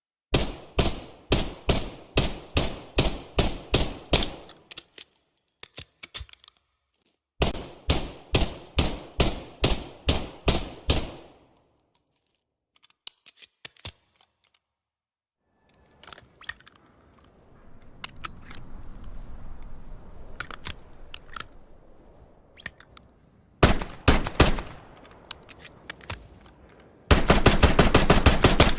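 Makarov PM 9×18 mm pistol fired in two quick strings of about a dozen and ten shots, roughly three a second, with sharp metallic clicks of handling between them. Later comes a stretch of low rumbling noise, a short cluster of shots, and near the end a much faster, dense burst of fire.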